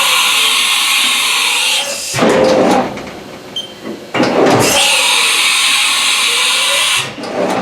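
Haas Super Mini Mill's umbrella-type automatic tool changer running a tool change: two long hisses of compressed air, each about two seconds, with mechanical clunks and sliding noises of the carousel and spindle drawbar between them.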